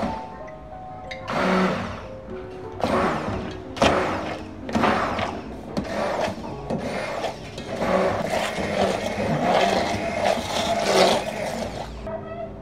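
Handheld immersion blender whirring through soft boiled raw mango pulp in a metal pot. It runs in short bursts of under a second at first, then more steadily from about halfway, and stops just before the end.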